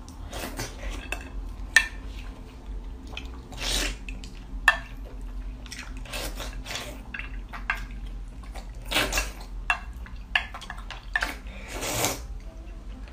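Close-up eating sounds of soft, fatty pork fat being slurped and sucked off a wooden spoon: several wet slurps of a second or less, with a few sharp clicks of the spoon.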